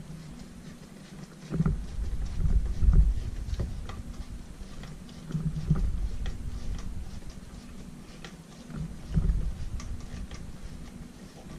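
Hands working on a vacuum cleaner motor's small parts: scattered light clicks and taps, with a few heavier low bumps and handling rumbles about one and a half, five and nine seconds in.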